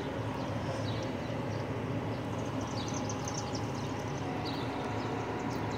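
Steady outdoor background noise with a constant low hum, and a few faint, short, high chirps scattered through it.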